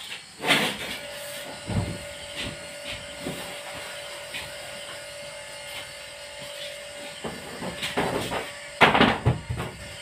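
A large plywood sheet being handled and stood up in a wall opening: knocks and scrapes of the board against the frame and floor, with a quick run of louder bumps near the end.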